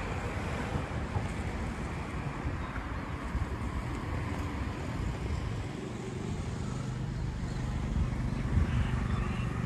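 Wind rumbling on the microphone over outdoor street noise, with a low vehicle engine hum joining in about halfway through.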